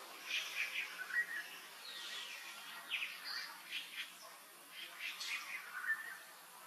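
Birds chirping: groups of short, quick high notes, some sliding down in pitch, with a brief lull a little after the middle.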